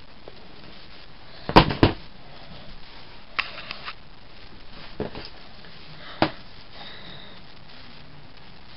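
A few sharp knocks and clicks of handling: a loud double knock, then three lighter clicks spaced a second or so apart, over a faint steady background.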